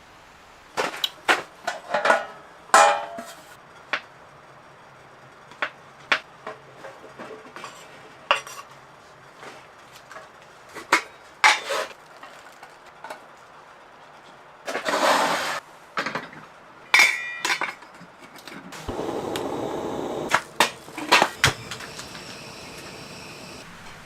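Metal camp cookware and utensils clinking and knocking, a dozen or so sharp hits with one ringing clink. A brief scrape comes in the middle and a couple of seconds of steady hiss near the end.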